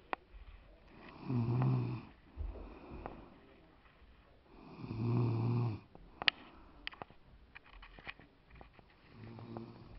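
Snoring: three long, rasping snores about four seconds apart, the last one fainter. Between the second and third snores come several sharp clicks, one of them loud.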